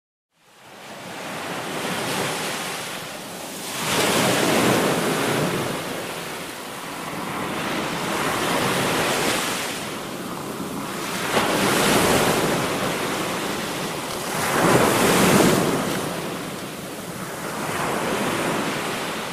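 Sea waves washing in, swelling and easing about every three to four seconds, with wind on the microphone. The sound fades in within the first second.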